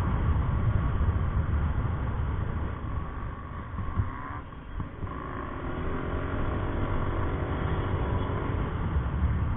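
Yamaha Mio i 125 scooter's single-cylinder engine running under way over a heavy low rumble. It eases off about four seconds in, then its pitch climbs slowly as the scooter picks up speed again.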